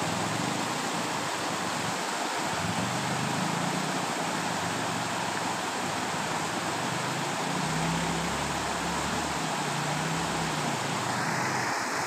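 Motorcycle engine running at low revs with a slightly wavering pitch, over a steady rush of flowing water while the bike fords a canal.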